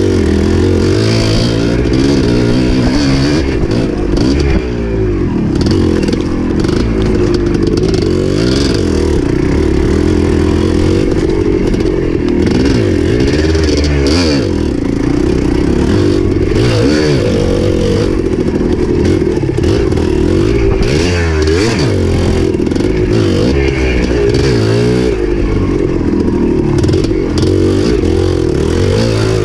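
Dirt bike engine running under constant throttle changes, revving up and falling back every second or two as the bike is ridden along a tight dirt trail, with some rattling from the bike.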